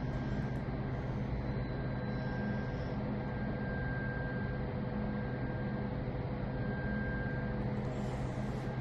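Steady low hum with a constant hiss, and a faint high tone that fades in and out.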